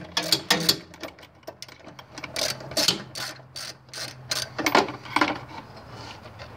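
Ratchet wrench clicking in short, irregular runs as a bolt is undone with a socket on an extension.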